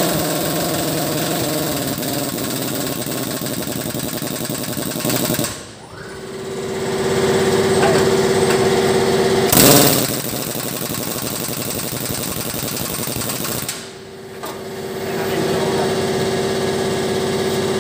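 Power tool, likely a pneumatic impact wrench, hammering in two long rattling runs of about four to five seconds each. After each run comes a steady humming whine.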